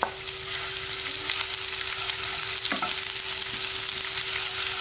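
Sliced onion hitting a little hot oil in a non-stick frying pan and sizzling steadily as it is stirred with a spatula. There is a clack as the onion is tipped in at the start, and the spatula knocks against the pan near the middle and again at the end.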